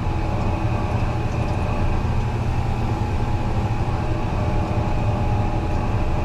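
Fendt 933 Vario tractor's six-cylinder diesel engine running steadily while driving, heard from inside the cab, with a deep even drone and a faint steady whine above it.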